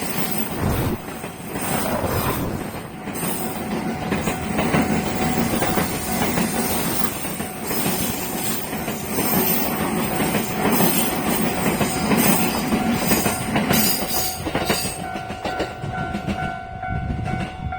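A train running through a level crossing, its wheels clacking over rail joints, while the crossing's warning bell rings. The train noise dies away near the end, leaving the bell ringing on its own.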